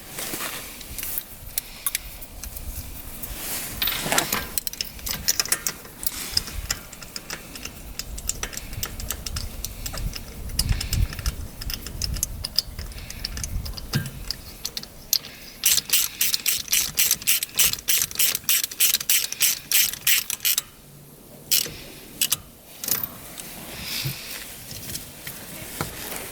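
Ratchet wrench clicking as a new spark plug is turned into the engine, with scattered tool clicks and handling noise. A steady run of quick clicks, about four or five a second, comes from about sixteen to twenty seconds in.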